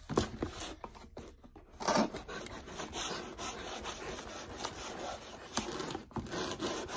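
A knife scraping and sawing at packing tape on a cardboard box: a continuous run of short rasping strokes, with one louder stroke about two seconds in.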